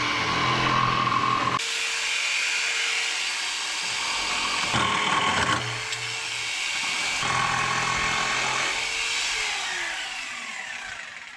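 Jigsaw with a down-cutting blade sawing through laminate-faced board, the motor note shifting several times as it works along the line, then winding down with a falling whine near the end. The down-cutting blade is used so the laminate face doesn't chip out.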